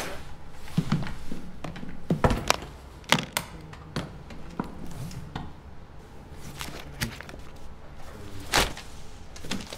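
A run of short clicks and knocks as a briefcase is opened and bundles of paper envelopes are handled and tossed onto a wooden table, the loudest about two seconds in and again near the end.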